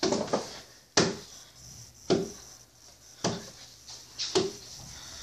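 A series of thuds with rustling, about one a second: someone moving quickly around a small room and handling things.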